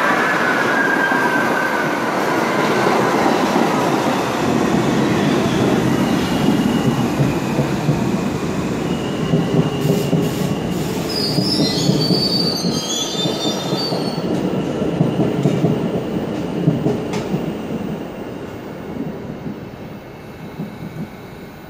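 R68A subway train braking to a stop alongside the platform. Its motor whine falls in pitch over the first couple of seconds over a dense rumble of wheels on rail, with high squeals and a few sharp clicks midway. The noise then dies down as the train halts.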